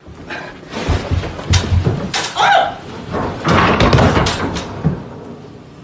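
A run of heavy thuds and bangs over about four seconds, with a short cry in the middle.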